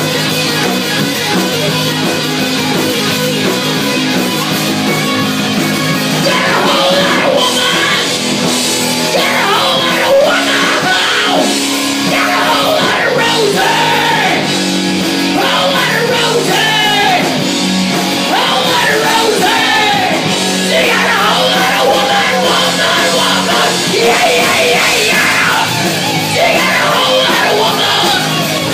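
Live rock band playing loud: electric guitars through amplifiers, bass guitar and drum kit, with a singer's vocals coming in about six seconds in and carrying on over the band.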